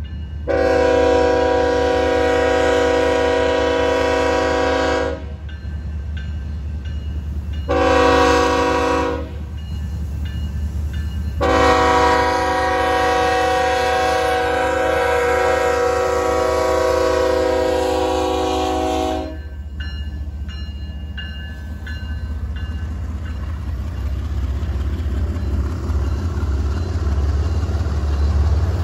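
Locomotive air horn sounding a chord in three blasts: a long one, a short one, then a long one of about eight seconds. Under it the train runs with a steady low rumble that grows louder near the end.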